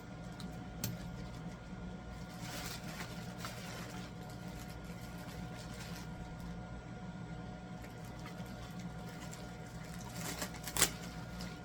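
Costway 10,000 BTU air conditioner running with a steady hum. A sharp click sounds near the end.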